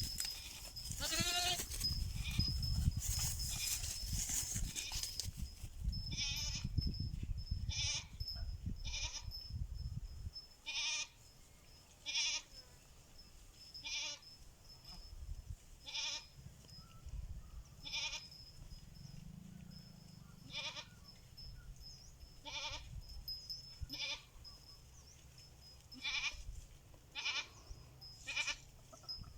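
Goats bleating, answering a call. There is one falling bleat near the start over low rumbling noise, then a string of short bleats about every second or two from about six seconds in.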